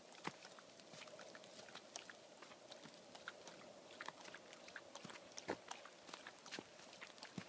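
Faint, irregular crunching and crackling of footsteps on snow-dusted dry leaves, with a couple of sharper cracks near the end.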